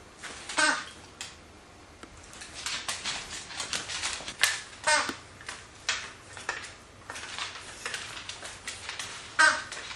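Scottish terriers playing with their new toys on a hardwood floor: short squeaks come three times, a little under a second in, about five seconds in and near the end, among scattered clicks and scuffles.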